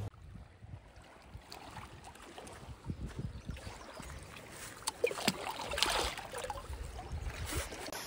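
Small waves lapping against a rocky lakeshore, with scattered soft knocks and splashes, louder about five seconds in.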